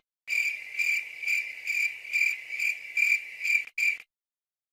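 Cricket chirping sound effect: a high trill pulsing about twice a second, starting suddenly and cutting off sharply about four seconds in.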